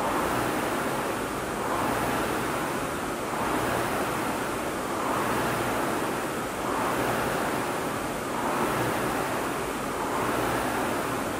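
Rowing machine's air flywheel whooshing in a steady rhythm: each drive stroke spins up the fan into a rushing swell that fades on the recovery, about once every 1.7 seconds.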